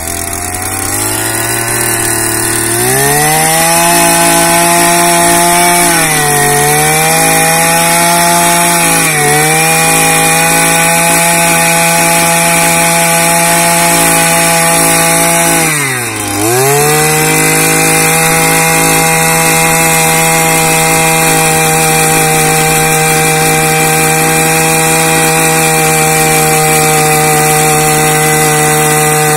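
Handheld petrol earth auger's small engine running at high revs as the auger drills into the ground. It speeds up a few seconds in, sags briefly under load twice, and bogs down more deeply about halfway through, then recovers to a steady high speed.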